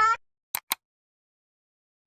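A dog's long rising howl cuts off abruptly just after the start, followed by two short clicks about half a second later, then silence.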